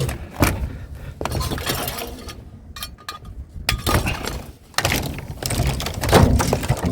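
Scrap debris being rummaged through and pulled out by hand: clattering and knocking with several sharp impacts and some clinks.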